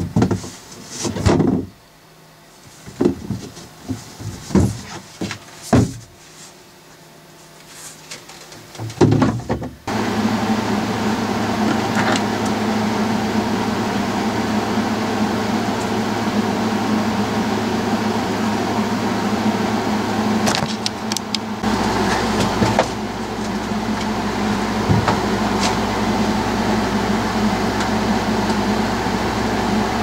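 Knocks and clatter as a seat-locker panel is handled and lifted away. About ten seconds in, a steady mechanical hum with several held tones starts abruptly and keeps going, and a deeper drone joins it a little past the middle.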